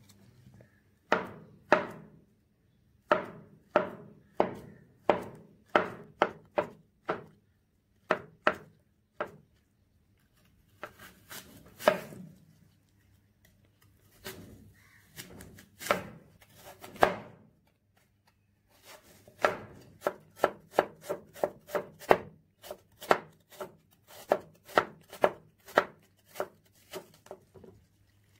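Chef's knife slicing peeled apples on a wooden cutting board: sharp knocks as the blade goes through the fruit and strikes the board. The knocks come in bursts with short pauses, then a quicker even run of about two cuts a second over the last third.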